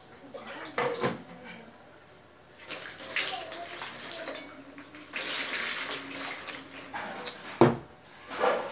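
Liquid being poured or splashed in two stretches of a few seconds each, with a sharp knock of a container or utensil near the end.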